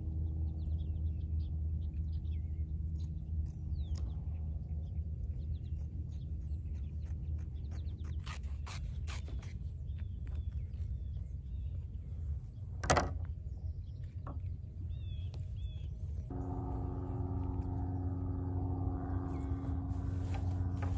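Soft background music of sustained chords, changing to a new chord about sixteen seconds in. Under it, cloth rustles as a blackout curtain is handled, with light clicks and one sharp click about thirteen seconds in.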